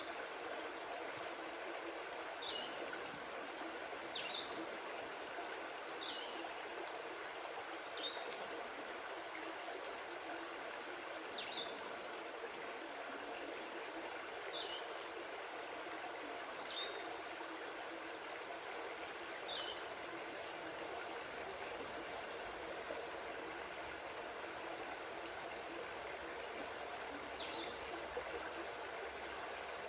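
Shallow rocky creek flowing steadily over stones, with a bird repeating a short, high, falling call every two to three seconds and pausing for several seconds in the second half.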